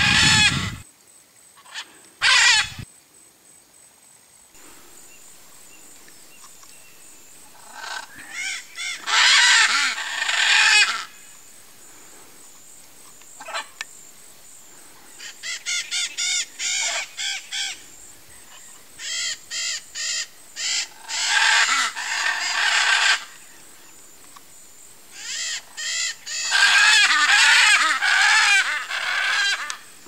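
Blue-and-yellow macaw squawking: harsh, raspy calls in bursts of one to three seconds, with runs of short clipped calls between them. Two sharp, loud bursts come in the first few seconds.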